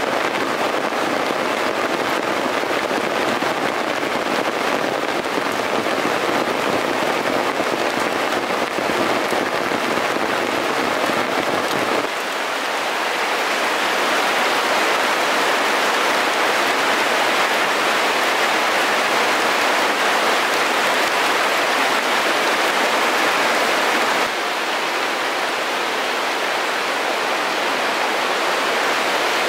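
Heavy rain pouring steadily, a dense even hiss. Its tone changes abruptly twice, about twelve and about twenty-four seconds in.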